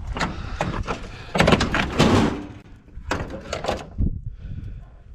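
Sheet-metal clanks, a scraping rattle and knocks from a stripped electric range being handled. The longest and loudest clatter comes about a second and a half in, and a few sharp knocks follow near three and a half seconds.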